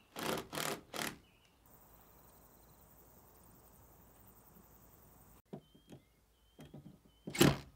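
Cordless drill driving screws into timber in three short bursts, then a faint steady high insect buzz; after that a few small clicks and short chirps, and one more short loud burst from the drill near the end.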